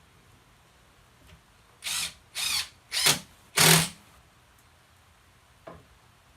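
Impact driver with a Robertson bit driving a screw into the chair's armrest in four short trigger bursts, the last the longest and loudest.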